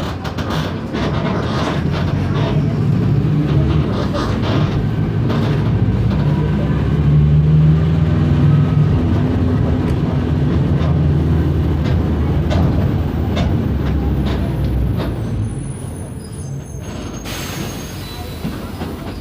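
Mercedes-Benz OF 1519 bus's four-cylinder diesel engine running steadily, then easing off about fifteen seconds in. A short hiss of air near the end.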